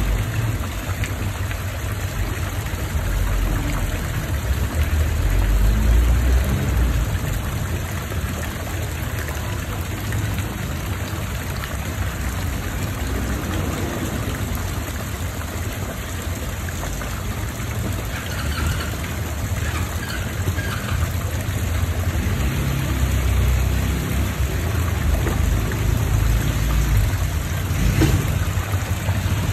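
Steady rushing and splashing of pond water over a low, uneven rumble.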